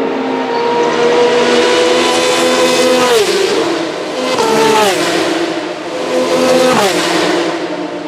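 Single-seater race cars with V6 engines passing at speed in quick succession. Each engine note holds high and then drops sharply in pitch as the car goes by, at about three seconds, around four and a half to five seconds, and again near seven seconds.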